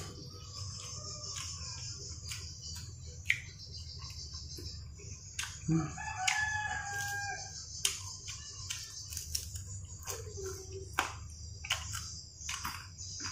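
A rooster crows once, about six seconds in, a call of a second and a half that rises and then holds level. Under it runs a steady high insect drone, with scattered sharp clicks and smacks from eating by hand.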